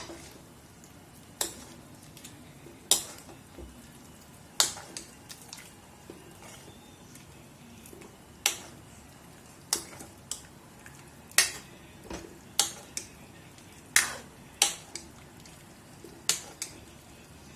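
A stainless-steel ladle stirring chicken curry in a steel kadhai, clinking sharply against the pan about once a second at uneven intervals, with a short pause near the middle.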